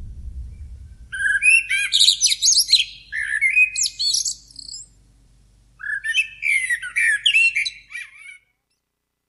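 A songbird singing two long phrases of rapid chirps and trills, about a second apart. The low tail of fading ambient music dies away at the start.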